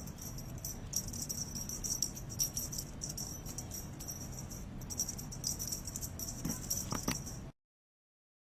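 Intermittent high jingling or rattling, like a small bell or rattle being shaken, over a low steady hum, with a few light knocks near the end before the sound cuts off abruptly.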